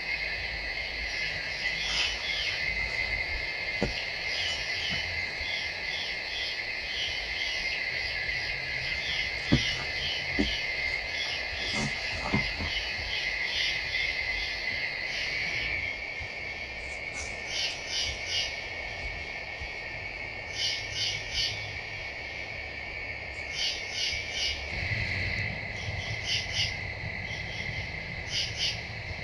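Night insect chorus: a steady high drone of crickets or katydids with clusters of short, rapid chirps from other insects layered over it, more spaced-out and distinct in the second half.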